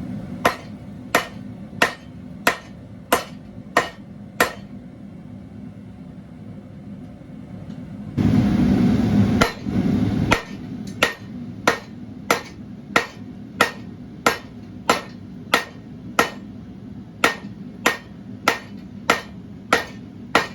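Hand hammer striking hot Damascus steel on an anvil in a steady rhythm, about one and a half blows a second, each blow ringing briefly. The blows come in two runs with a pause between them, and a loud rushing noise fills the pause for about two seconds near the middle.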